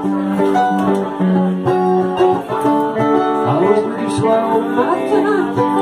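Live band playing an instrumental passage of a folk-rock song: mandolin and electric guitar playing together.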